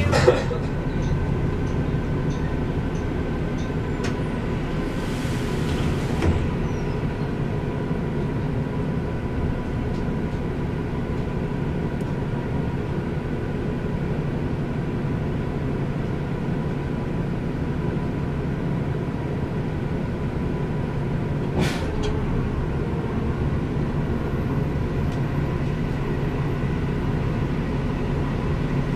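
Steady drone of a city bus's Cummins Westport ISL-G natural-gas engine idling, heard from inside the bus. A short hiss comes about five seconds in, and a single click a little after twenty seconds.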